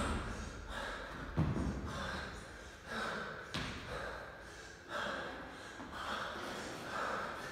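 A man breathing hard from exertion in a series of heavy exhalations, with a dull thump about a second and a half in and a sharp knock about three and a half seconds in.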